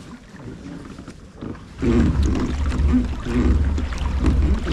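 Kayak under way: wind buffeting the microphone in a fluttering low rumble, with water sloshing against the hull, loud from about two seconds in after a quieter start.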